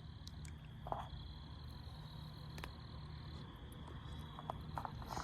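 Crickets chirring steadily over a low hum, with a few soft clicks.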